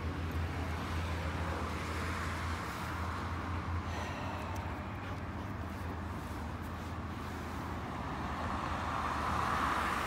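Steady road traffic noise, with a car passing and growing louder near the end.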